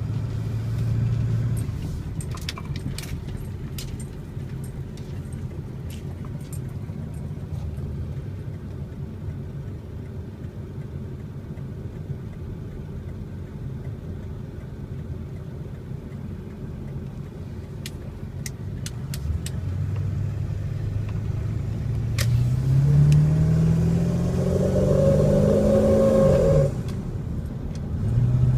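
7.3-litre V8 engine idling with a few sharp clicks, then revved up in a rising pitch, held high for a few seconds and dropped back to idle. At the top of the rev a steady whine rides over the engine: the noise the owner hears at high rpm and likens to metal on metal or a bad bearing.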